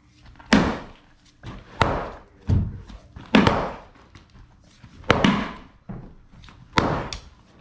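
Sledgehammer blows breaking up an old concrete wall, about six heavy strikes at an uneven pace, roughly one every second or so. The concrete has no rebar and breaks easily.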